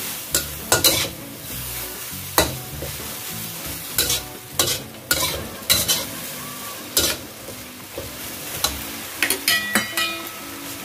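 Metal spatula scraping and clacking against a wok as bean sprouts and onion are stir-fried, with sizzling underneath. The strikes come irregularly, with a quick cluster of ringing clinks near the end.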